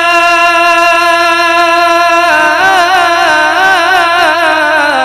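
A solo male voice sings a naat into a microphone. He holds one long steady note, then about two seconds in breaks into a wavering, ornamented run, and settles on a lower note near the end.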